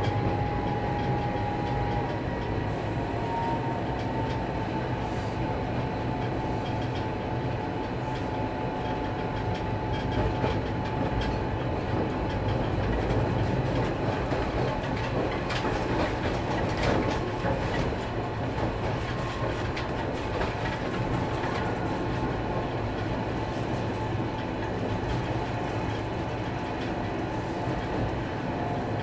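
Cab of a diesel locomotive under way: the engine drones steadily while the wheels clatter over rail joints and points, the clatter thickest midway through. A steady high tone sounds at the start and stops about two seconds in.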